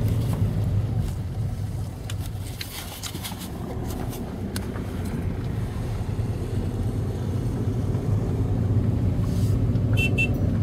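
Car engine and tyre noise heard from inside a moving car: a steady low hum that dips a little about two seconds in and then slowly builds again.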